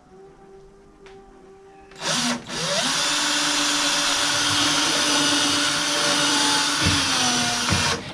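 Cordless drill boring a small hole through a refrigerator's inner wall. A short burst comes about two seconds in, then a steady run of about five seconds whose pitch sags slightly just before it stops near the end.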